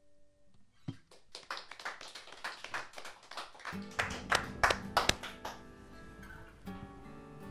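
A few people clapping after a song, the claps quickening and growing louder, then stopping about five seconds in. Steady background music comes in partway through and carries on under the end of the claps.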